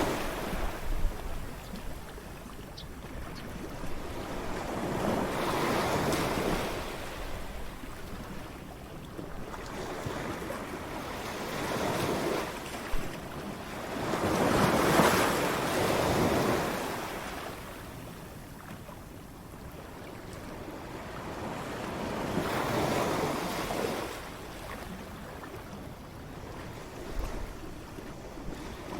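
Ocean waves crashing, the surf swelling and fading every few seconds, with the loudest wave about halfway through.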